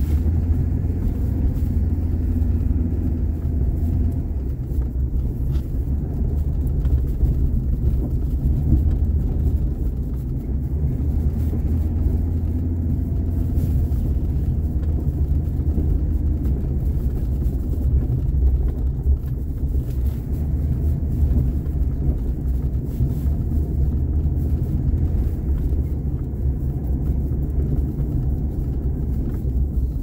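A car driving: a steady low rumble of engine and road noise that barely changes over the whole stretch.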